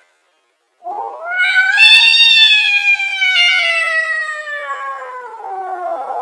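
Angry cat caterwaul, slowed down: after a brief silence, one long drawn-out yowl that rises in pitch and then slowly sinks.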